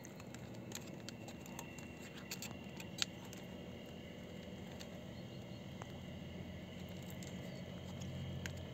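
Faint small clicks and scrapes of a flat screwdriver and fingers working the plastic float bracket of a Lada Vesta fuel pump module, with one sharper click about three seconds in, over a faint steady low hum.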